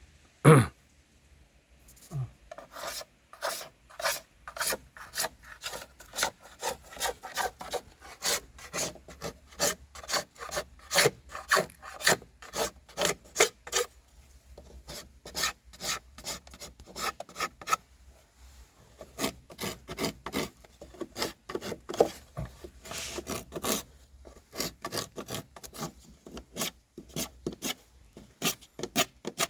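Scraping knife drawn hard across old hanok timber in quick, short repeated strokes, stripping the weathered surface off the wood. A single sharp knock comes about half a second in, before the strokes begin.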